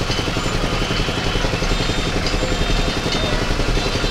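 An engine idling steadily, with a fast, even chugging, over busy street noise.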